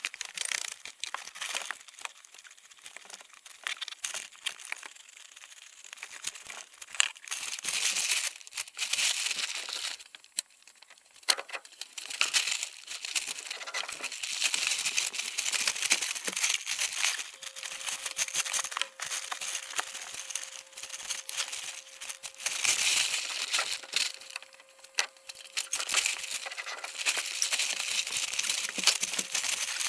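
Irregular rustling, scraping and crunching with sharp clicks: hands-on work on dirt and debris in a crawlspace, setting up concrete blocks and bottle jacks. A faint steady hum comes in a little past halfway.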